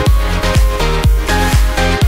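Electronic dance music with a steady kick drum about twice a second under sustained synth notes.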